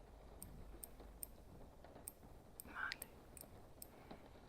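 Eyeglasses being handled up close: faint, light clicks about two and a half a second, with one louder tap and rustle about three seconds in.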